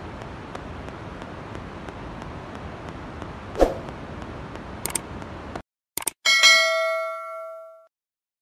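Subscribe-button animation sound effect: a couple of sharp clicks, then a bell ding that rings and fades over about a second and a half. Before it there is a steady hiss with a single thump and a few short clicks, which cuts off abruptly.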